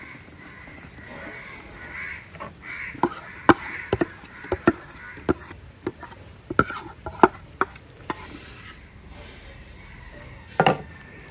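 Crows cawing in the background for the first few seconds. Then an irregular run of sharp knocks as a utensil strikes a pot while urad dal batter is scooped into the rice batter, with one last knock near the end that rings briefly.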